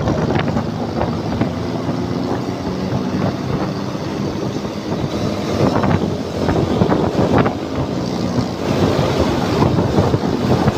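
Wind buffeting the microphone of a moving Suzuki motor scooter, with the scooter's small engine running at a steady cruising pitch underneath. The gusts swell louder a few times.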